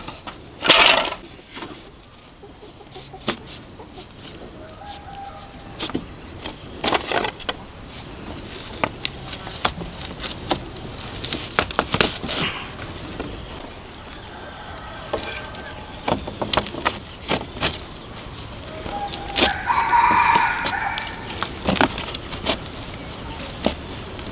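Split bamboo strips knocking and clattering as they are handled and laid on the ground, with footsteps on dirt; a rooster crows about twenty seconds in.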